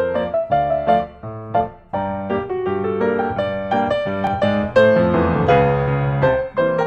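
Background piano music: a melody of separate struck notes.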